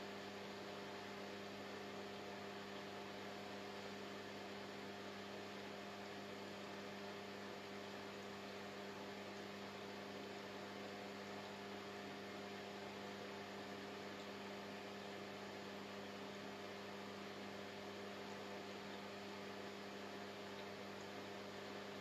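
Quiet, steady electrical mains hum with a faint even hiss underneath; nothing starts or stops.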